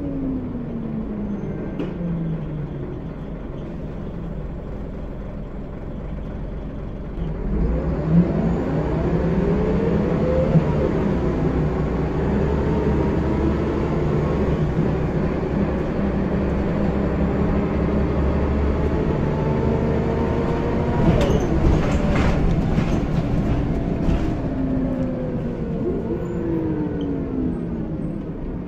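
Scania L94UB bus's rear-mounted nine-litre five-cylinder diesel, heard from inside the cabin. The engine note falls as the bus slows, then rises as it pulls away after a few seconds, climbing and dropping through the gear changes. A cluster of clicks and rattles comes about two-thirds of the way through, and the engine winds down again near the end.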